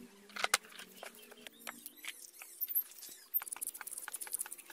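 Bristle brush scrubbing wet steel gearbox shafts and gears, with light clinks of the metal parts being handled. A sharp click comes about half a second in, and a brighter, faster scratchy scrubbing starts about three and a half seconds in.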